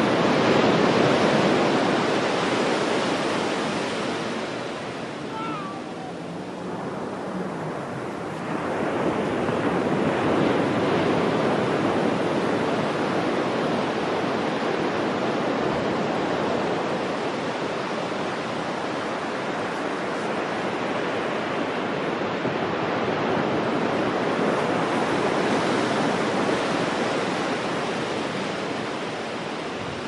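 Ocean surf breaking and washing up a sandy beach, a continuous rushing wash that eases off around five to eight seconds in and swells again as the next wave breaks.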